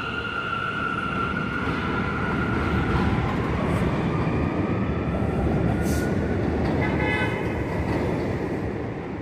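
New York City subway train running through an elevated station: a loud, steady rumble that builds to a peak mid-way. Early on there is a high motor whine that fades out after about two seconds, and a brief high tone comes about seven seconds in.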